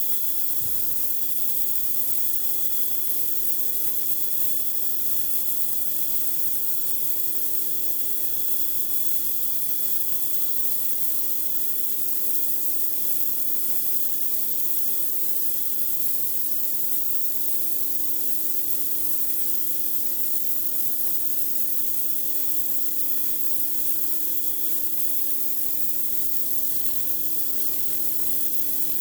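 Pressure washer spraying water steadily at high pressure onto concrete: an even hiss over a steady hum from the machine running underneath.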